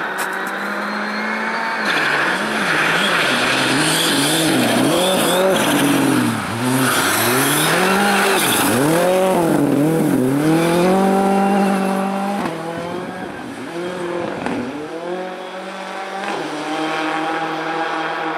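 Ford Fiesta rally car at full attack on an icy stage: the engine revs climb and drop sharply over and over as the driver brakes, shifts and slides through a corner, with tyres hissing and scrabbling on ice and snow. It then holds higher, steadier revs as it pulls away into the distance.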